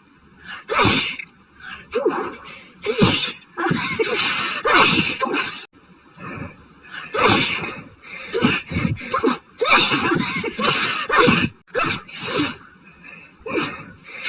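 A woman's sneezing fit: a long run of loud sneezes in quick succession, roughly one a second, some running straight into the next. She puts the fit down to a pollen allergy, possibly a new allergy to grass.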